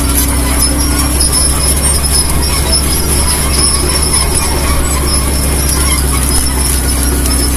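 Excavator's diesel engine running steadily under work, with a steady high-pitched metallic squeal over it.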